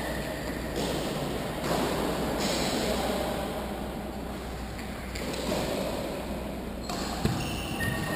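Steady noisy background of an indoor sports hall during a five-a-side football game, with a single thud near the end.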